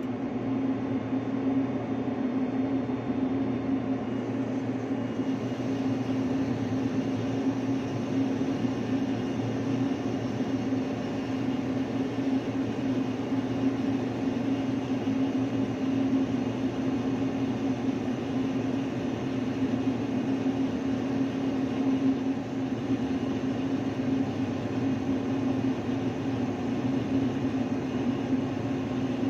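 Ship's machinery running with a steady, unchanging low hum.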